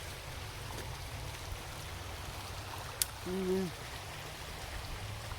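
Creek water rushing steadily over rocks at a small waterfall. There is a sharp click about three seconds in, and a brief hum from a voice just after it.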